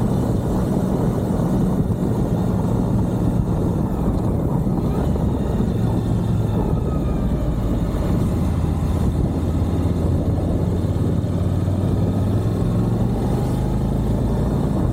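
Suzuki V-Strom 1050XT's V-twin engine running under way, recorded onboard over steady rushing wind noise. The engine note shifts up and down a few times as the throttle changes.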